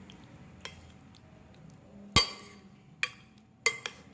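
Metal spoon clinking against a glass bowl while stirring salted lemon pieces: a faint tap early, then four sharp clinks in the second half, the loudest about halfway through.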